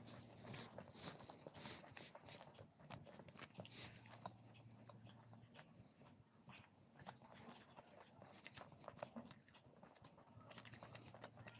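Faint, close eating sounds: irregular bites and chewing with small crunches of fried pakoras and paratha. A faint low hum comes and goes underneath.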